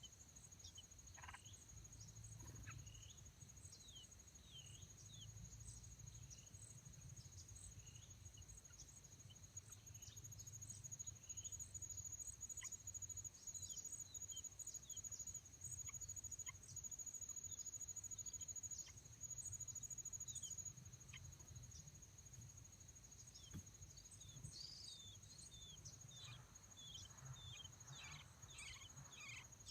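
A high, steady insect trill, likely a cricket, runs throughout. It grows louder and pulses rapidly through the middle third. Short, high bird chirps come scattered throughout and grow more frequent near the end.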